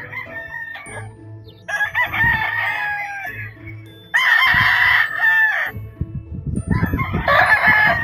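Roosters crowing: three long crows, one after another, about two seconds apart.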